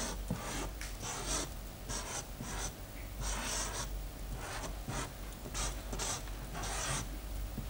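Black felt-tip marker drawing on a paper pad: a quick, irregular run of scratchy strokes, mostly short, with a few longer drawn-out lines.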